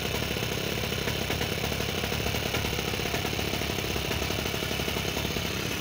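O.S. FS-26S-CX single-cylinder four-stroke glow engine of a 1/12-scale live diesel locomotive idling steadily at about 5,000 rpm, throttled down.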